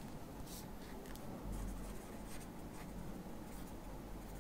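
Pen writing on paper: faint, irregular scratching strokes of the tip as words are written out.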